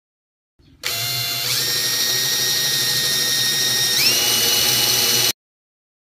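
Cordless drill running as it bores holes in a dome-shaped cover, a steady motor whine that steps up in pitch twice, at about one and a half and about four seconds in, then cuts off suddenly.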